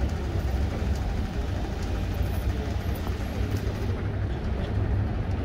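City street ambience: a steady low rumble of traffic, with a tram moving away along its tracks.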